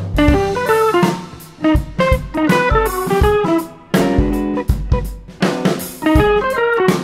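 Background music: a melody of quickly decaying plucked-string notes over a drum kit.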